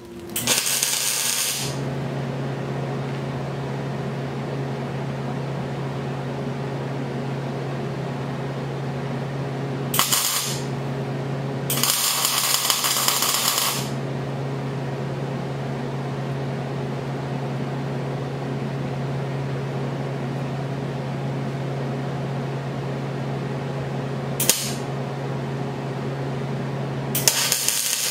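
Arc welder laying tack welds on the steel mounting tab of a hydraulic thumb on a John Deere 27C mini excavator's arm. Short bursts of welding come and go: one at the start, two close together about halfway through, a brief one later and another near the end, with a steady low hum between them.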